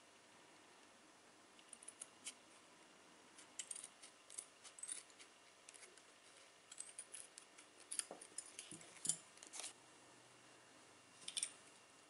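Scissors snipping through a thin sheet of material: a scattering of short, faint snips and clicks, busier and a little louder in the second half.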